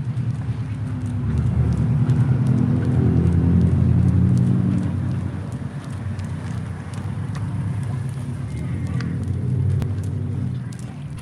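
A motor vehicle engine running with a low, pulsing rumble, growing louder over the first few seconds and then easing off. Faint light ticks sound above it.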